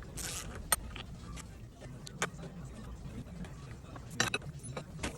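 Scattered sharp metal clinks and taps of tools and parts being handled while a GM power steering pump is taken apart, with a short hiss just after the start and a quick cluster of clinks near the end.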